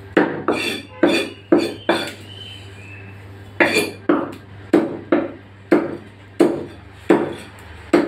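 Steel cleaver chopping chicken pieces on a round wooden log chopping block: about a dozen sharp chops, each with a short ring, in two quick runs with a pause of about a second and a half between them.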